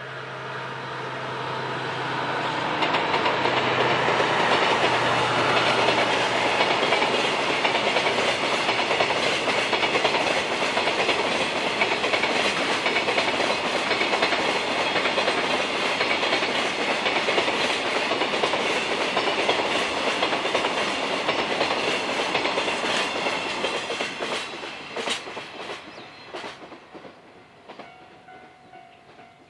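Container freight train hauled by a DF200 diesel-electric locomotive passing. The locomotive's engine hum comes first, then a long steady rumble and clatter of container wagons on the rails, which fades near the end with a few last wheel clacks.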